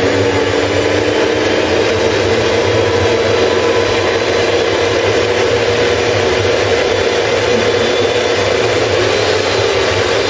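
Electric stand mixer running empty at a steady speed, beaters spinning and bowl turning. Its motor gives an even whine over a low hum.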